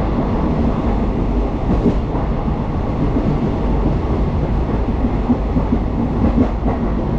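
Steady running noise of a moving passenger train, heard from inside an Indian Railways sleeper-class coach and strongest in the low end.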